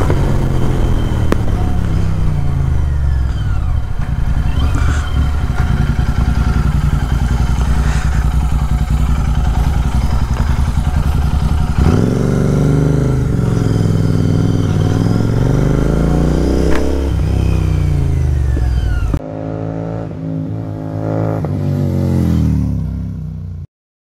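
Royal Enfield Continental GT 650's 650 cc parallel-twin running through an open Red Rooster Performance aftermarket exhaust while riding. It is steady at first; from about halfway the revs rise and fall several times. It drops to a quieter, softer sound near the end and then cuts off.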